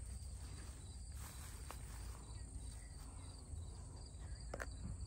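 Insects chirping steadily and faintly, over a low rumble, with a couple of sharp clicks near the end.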